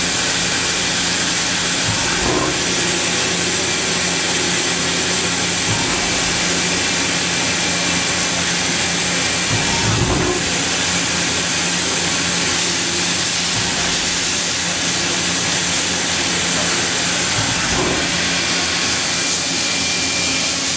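Fadal 4020HT vertical machining center's spindle running free at 1200 RPM on a dry run, not cutting: a steady low hum over a broad hiss.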